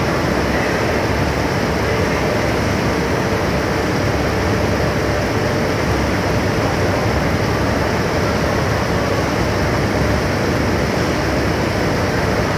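Heavy machinery running: a steady, even mechanical drone with no distinct knocks or changes.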